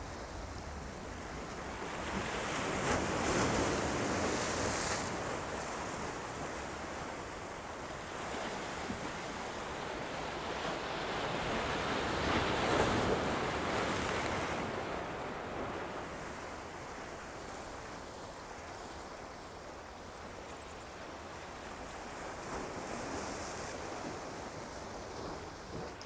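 Small sea waves washing in over shoreline rocks, a steady rush of surf that swells louder with a foaming surge a few seconds in and again around the middle, with a softer surge near the end.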